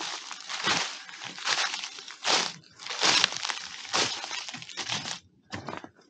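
Footsteps crunching through dry fallen leaves at a steady walking pace, about seven steps, stopping near the end.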